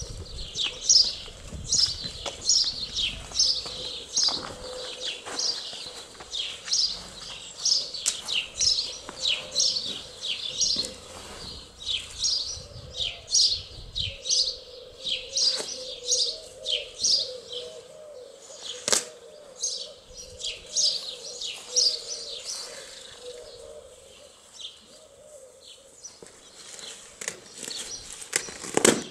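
A songbird chirping over and over, short high falling chirps about two or three a second, which stop a few seconds before the end. A sharp pop stands out about two-thirds of the way in, among lighter clicks and knocks.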